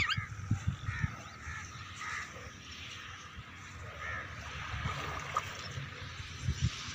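Crows cawing faintly, a few short calls spaced a second or two apart, over a low rumbling outdoor background.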